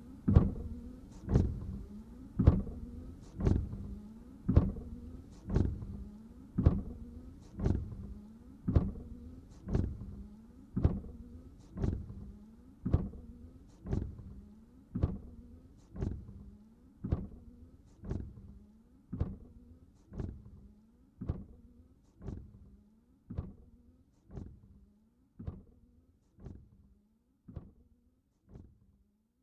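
Car windshield wipers sweeping across dry glass with no washer fluid, about one stroke a second. Each stroke starts sharply and trails off, and the strokes grow steadily quieter toward the end.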